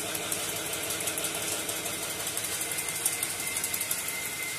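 Working wooden model machine driven by a small electric motor, running steadily with a fast rattle and a faint high whine.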